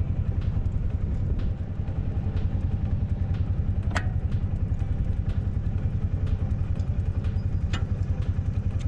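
Tractor engine running steadily with a rapid low pulse, with two sharp metallic clicks, one about halfway through and one near the end.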